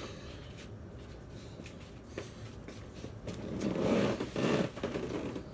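Rustling and scraping of clothing and bedding close to the microphone as a person moves up to the phone and sits down, loudest about four seconds in, after a few light knocks.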